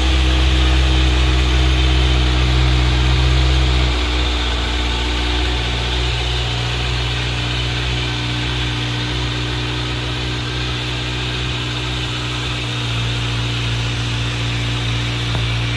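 2023 Kawasaki Z900's inline-four engine idling steadily through its stock exhaust; its low note changes and it gets slightly quieter about four seconds in.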